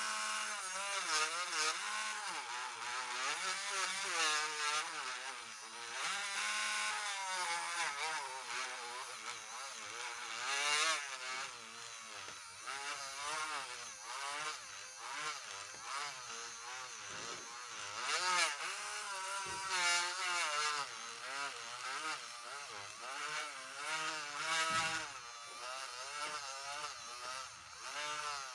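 Handheld rotary tool spinning a felt polishing wheel against the metal bell of a Littmann stethoscope chest piece; the motor's whine wavers continually up and down in pitch.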